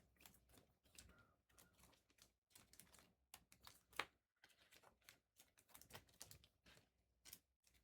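Faint, irregular light clicks and taps from handling at a desk, with one sharper click about four seconds in.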